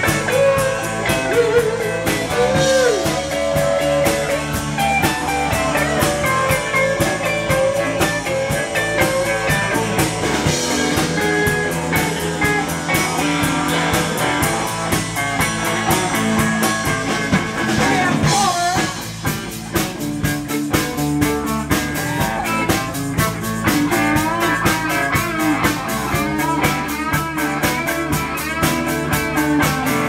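Live blues-rock band playing, with electric guitars and drums; the lead guitar bends its notes.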